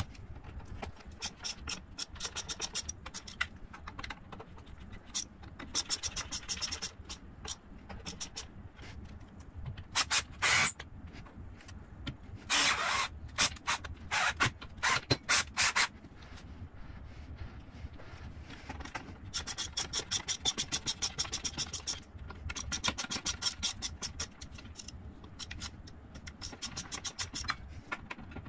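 Quarter-inch screws being driven into cross dowels to fasten a plywood tensioner block to the machine's base: several runs of rapid, even ratcheting clicks lasting a few seconds each, with a few louder bursts of noise near the middle.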